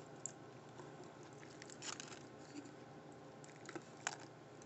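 Faint eating and handling sounds: quiet chewing and soft rustles of the paper wrapper around a deep-fried sushi burrito, with a few sharper clicks scattered through, the strongest about two and four seconds in.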